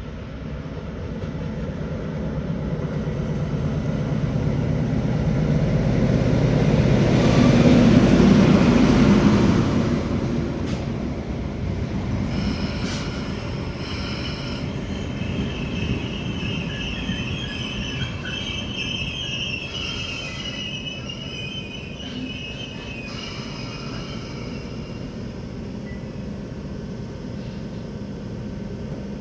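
Passenger train arriving at a station. The rumble of the train and its wheels builds to a peak about a quarter of the way in and then eases as it slows. Its brakes then squeal high for about ten seconds as it draws to a stop.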